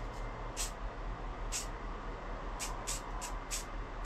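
Aerosol spray paint can hissing in short bursts, about six quick sprays, with several close together in the second half: red paint being dusted on in light coats. A steady low hum runs underneath.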